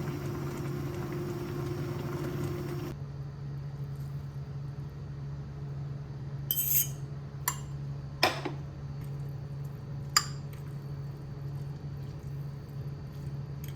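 Dishes and glassware clinking: four short separate clinks spread over a few seconds, over a steady low hum. A steady rush of noise cuts off suddenly about three seconds in.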